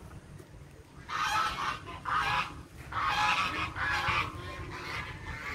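Four harsh, honking animal calls, each about half a second long, coming in two pairs from about a second in.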